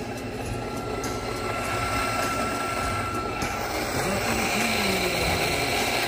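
Electric espresso grinder running steadily while grinding coffee beans into a portafilter, a motor whine over a grinding hiss, cutting off suddenly at the end.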